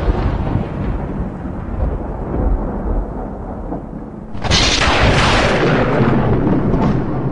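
Thunder-like sound effects: a rumbling boom fading away, then a second sudden loud crash about four and a half seconds in that rumbles off.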